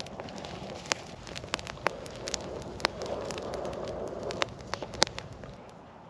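Freshly lit campfire of slightly damp wood crackling, with irregular sharp pops over a steady rushing hiss.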